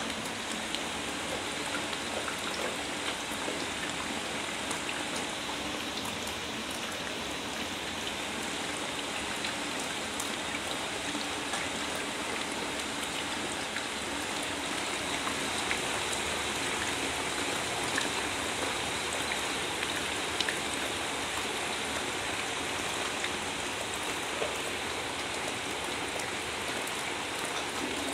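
Steady patter of falling water, like rain, with scattered small drips throughout.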